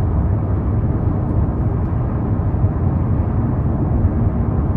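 Steady low road and engine rumble inside a Hyundai Sonata Brilliant cruising at highway speed.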